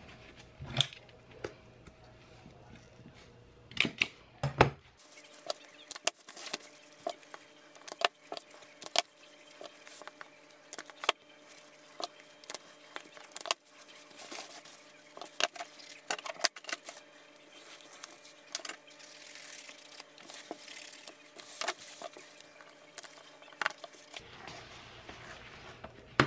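Leather and small tools being handled by hand on a work surface: irregular sharp clicks and taps with soft rustling of the leather, over a faint steady hum.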